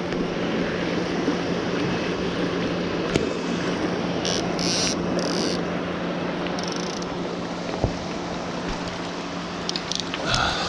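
Steady rushing of fast-flowing creek water, with a few short hissy sounds about four to five seconds in.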